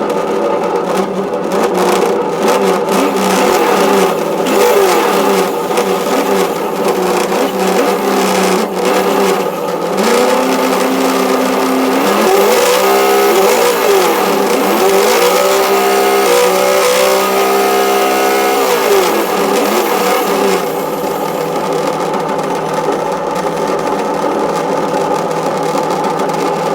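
Electronic engine-sound simulator on a Traxxas Slash RC truck, playing a simulated engine through a small speaker: a steady idle, then several revs up and down in the middle stretch before settling back to idle. A rustling buzz comes from the truck's loose body shell, not from a blown speaker.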